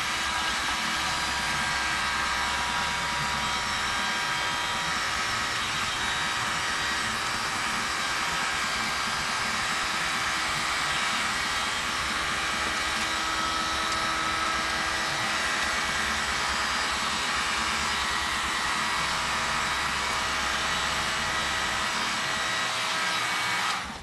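Electric heat gun blowing steadily, a rush of air with a faint steady whine; it cuts off near the end.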